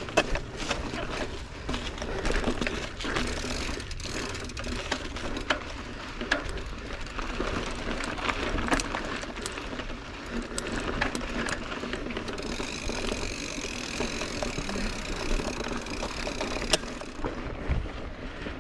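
Mountain bike being ridden fast over a rocky dirt trail: the bike rattles, with many sharp clicks and knocks as the tyres hit rocks, over a low rumble. For a few seconds past the middle the rear hub's freewheel buzzes as the rider coasts.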